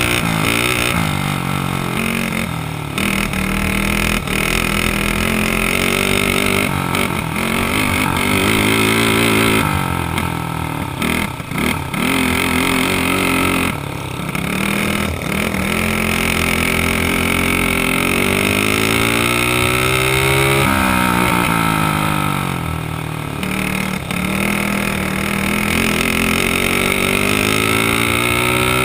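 Dirt kart engine running hard, its pitch climbing and dropping again and again as the throttle is opened and eased, with a deep dip and climb a little past two-thirds through.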